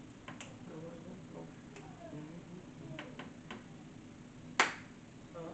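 Mouth sounds of someone eating a fish taco: small wet clicks and lip smacks while chewing, with one sharp, louder smack about four and a half seconds in.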